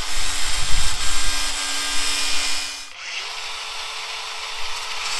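Electric grinder cutting through stripped metal screws: loud grinding hiss over the motor's steady hum. About three seconds in the tool eases off, then spins back up and grinds again.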